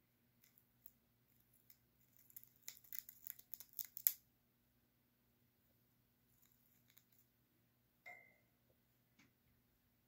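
Budgerigar chewing on a wooden stick with its beak: a run of small crunching, splintering clicks, thickest a few seconds in, then fainter nibbles. A single short higher note sounds about eight seconds in.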